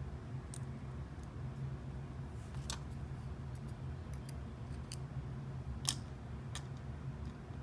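A few scattered small clicks as the metal pins and parts of a Yale Superior lock are handled during reassembly, over a low steady hum.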